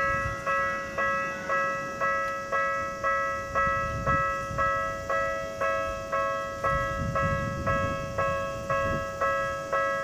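Japanese level-crossing warning bell sounding its repeating electronic clang about twice a second, each strike ringing and fading before the next: the crossing alarm that warns of an approaching train. A low rumble comes under it around seven to nine seconds in.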